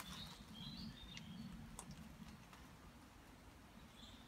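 Near silence outdoors, with a few faint, short bird chirps in the first second or so and again near the end.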